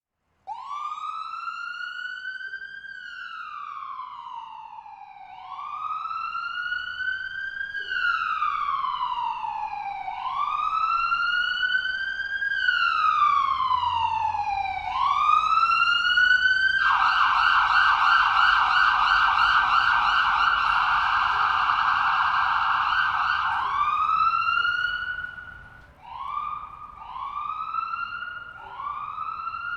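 Electronic ambulance siren. It starts with four slow wails that rise and fall, growing louder, then switches to a fast yelp for about seven seconds. It then gives one more wail and a run of short rising whoops near the end.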